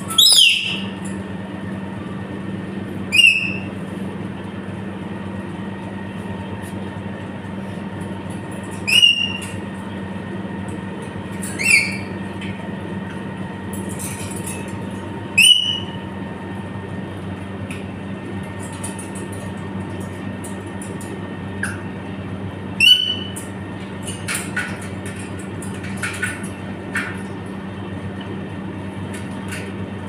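Parrots giving short, loud, rising whistled calls, about six spread out at irregular gaps with a few fainter ones between, over a steady low hum.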